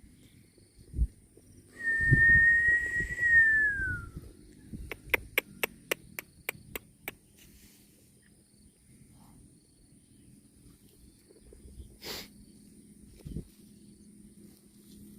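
A person whistling one long, steady, high note that falls in pitch at the end, about two seconds in. A quick, even run of about eight sharp clicks follows, then scattered low knocks and one more click near the end.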